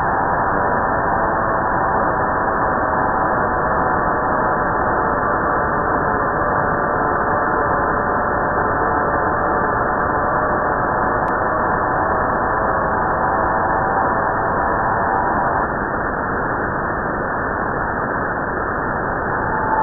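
Shortwave radio receiver audio on 4623 kHz: several steady tones sounding together over static hiss, which the uploader takes for a digital data burst. The tones thin out and the sound drops slightly about three-quarters of the way through, and a single tone comes back at the very end.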